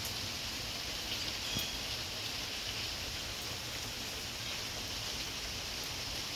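Heavy rain pouring down in a steady, even hiss, with a few faint drop ticks.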